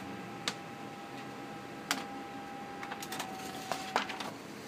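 HP Color LaserJet 2600n laser printer running as a page feeds out: a steady motor whine with a few sharp clicks from the mechanism, the whine stopping about four seconds in.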